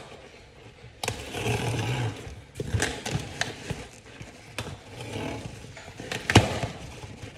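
Packaging being handled and opened: rustling and scraping with scattered clicks, and one sharp knock about six seconds in.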